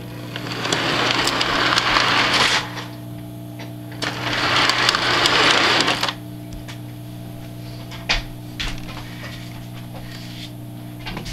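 O gauge model train running on its layout: a steady electric hum with mechanical clatter, and two louder rushes of rattling noise of about two seconds each, near the start and in the middle. After that it settles back to the hum with a few light clicks.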